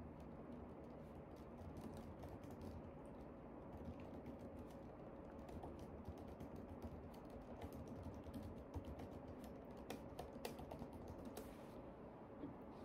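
Faint typing on a laptop keyboard: a run of light key clicks that grows quicker about eight seconds in and stops near the end.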